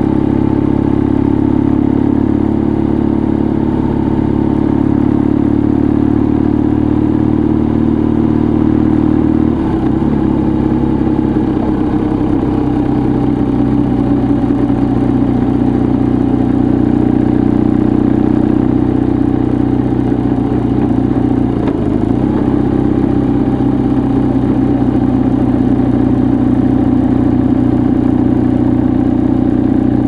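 A vehicle's engine running steadily while driving along the road. The engine note dips and recovers twice, about ten seconds in and again about twenty-two seconds in.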